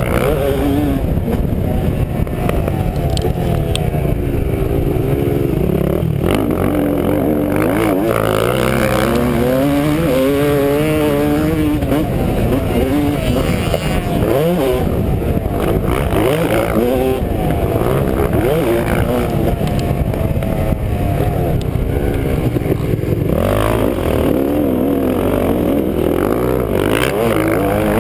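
Dirt bike engine heard close up from a camera mounted on the bike, revving up and down repeatedly as the rider accelerates, shifts and backs off through the track's turns and straights.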